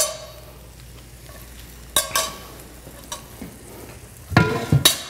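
Metal spoon clinking against a stainless steel sauté pan a few times, with brief ringing, then a louder clatter of metal kitchenware near the end.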